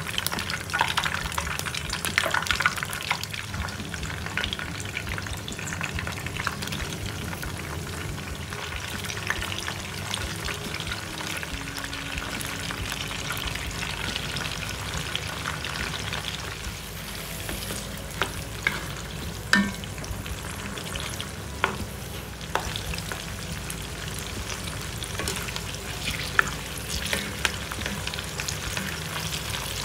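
Hot oil sizzling steadily in a wok as beef, then chillies, shallots and tomato fry in it, with stirring from a wooden spatula and wire strainer. A few sharp knocks stand out about two-thirds of the way through.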